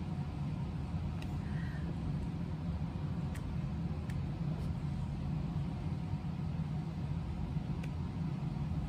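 A steady low background hum, with a few faint light ticks scattered through it: a diamond-painting drill pen tapping resin drills onto the canvas.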